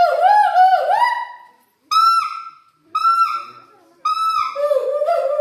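Gibbon song: a quick run of rising-and-falling whooping hoots, then single hoots about a second apart, building into another rising run near the end.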